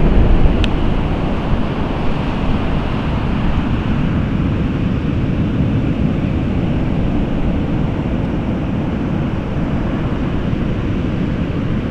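Stormy sea surf washing onto the beach in a steady rush, with wind buffeting the microphone.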